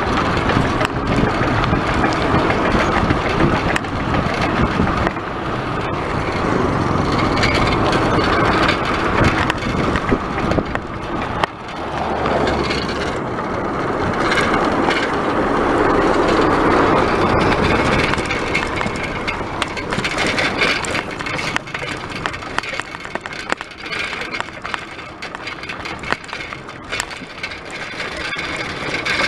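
Road and wind noise from a camera riding on a moving bicycle: a steady rush with a constant crackling rattle as the bike rolls over a rough road.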